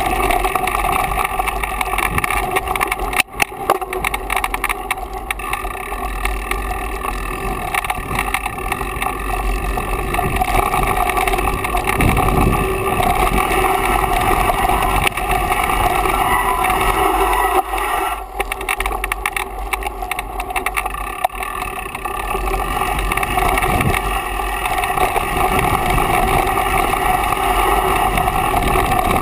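Steady rushing wind and rolling trail noise from a mountain bike coming down a dirt singletrack, as picked up by the bike-mounted action camera. A constant low rumble runs under a fixed droning hum, with brief drops in loudness twice.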